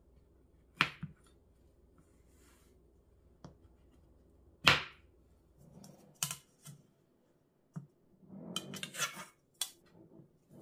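Knife and metal ruler clacking on a plastic cutting board, two loud knocks in the first half and several lighter ticks. Near the end comes a rough scraping as a knife is drawn along the ruler, cutting a sheet of frozen pastry dough.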